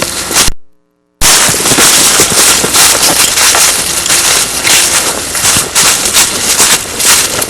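Imported battle sound effects: dense, continuous rapid gunfire that starts suddenly after a brief cut to silence about a second in.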